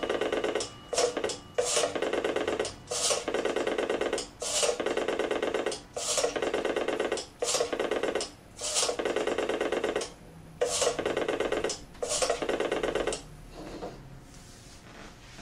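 Payphone rotary dial being dialed: about ten short buzzing whirs, each the dial spinning back under its governor after a digit is pulled, separated by brief pauses while the next digit is wound.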